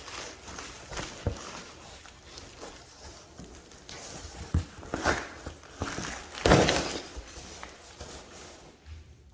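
A heavy punching bag being unpacked and handled: rustling of its wrapping with irregular knocks and thumps, the loudest thump about six and a half seconds in.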